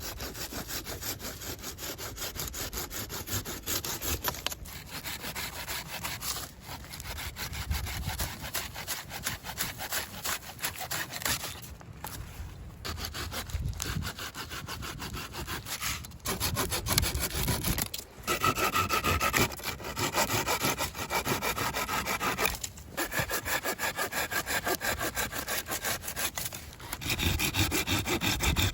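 Hand saw cutting through wood in quick back-and-forth strokes, stopping briefly every few seconds.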